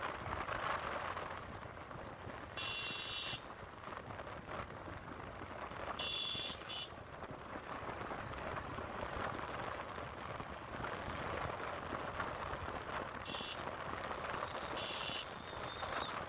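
Wind rushing over the microphone with the road and engine noise of a motorbike riding steadily. Four short high-pitched tones break through, near 3, 6, 13 and 15 seconds in.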